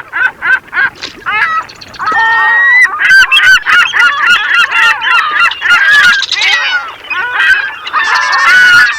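A flock of birds calling loudly, first a run of short repeated calls about four a second, then from about two seconds in a dense chorus of many overlapping calls.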